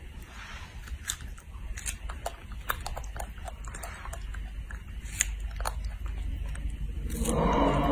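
Baby macaque biting and chewing strawberries: a scatter of short, wet clicks and smacks over a low hum. Near the end a pitched voice comes in, the loudest sound.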